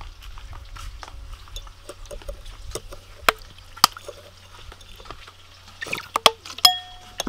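A thin stream of liquid poured from a plastic squeeze bottle into a glass bowl, with scattered small clicks and drips. Near the end a metal spoon knocks against the glass bowl several times, and one clink rings briefly.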